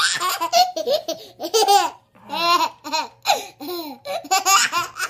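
A baby laughing hard in repeated bursts of giggles, strings of short breathy 'ha's with brief pauses between the bursts.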